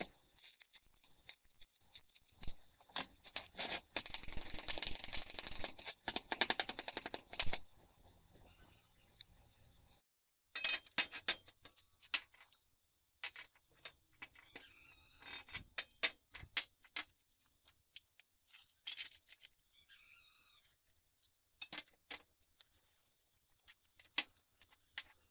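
Metal workshop handling sounds from a homemade angle-grinder sliding guide and its parts: a rapid run of clicking and rattling for a few seconds, then, after a short break, scattered clinks and knocks as a square steel tube and metal stands are set in place.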